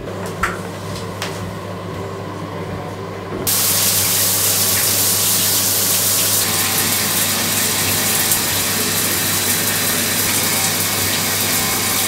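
Shower head spraying water: a steady, loud hiss that starts abruptly about three and a half seconds in, after a few light clicks and knocks.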